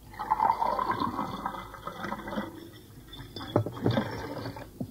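Liquid being poured into a glass, a splashing stream that starts suddenly.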